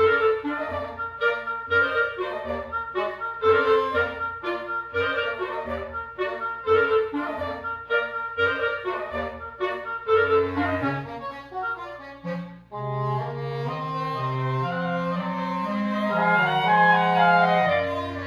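Woodwind quintet playing live: short detached notes in a quick, even rhythm, then after a brief break about two-thirds of the way in, longer held chords over a rising bass line, growing louder toward the end.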